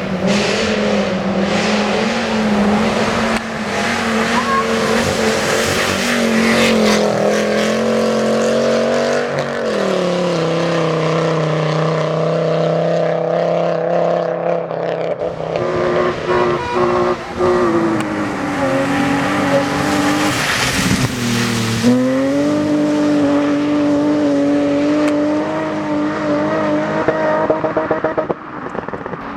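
Rally car engines at high revs on an asphalt special stage. The engine pitch climbs and drops repeatedly as the drivers change gear and lift off, with a sharp rise about 22 seconds in.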